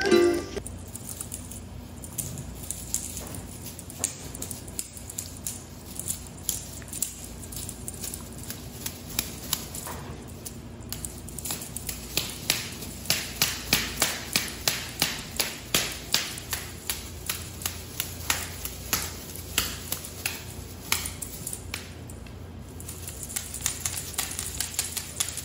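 A long run of short, sharp clicks or taps, about three a second, loudest and most regular through the middle stretch, over a quiet room background.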